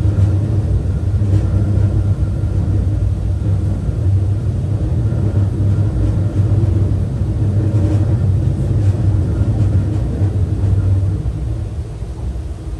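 Running noise inside the cabin of the Saphir Odoriko, a JR East E261-series electric express train, moving at speed: a steady low rumble of wheels and running gear on the rails, easing slightly near the end.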